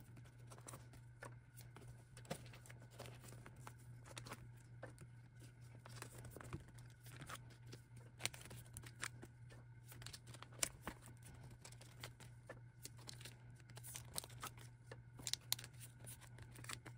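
Faint crinkling and rustling of clear plastic binder sleeves as photocards are handled and slid into the pockets, with many small scattered clicks and taps over a low steady hum.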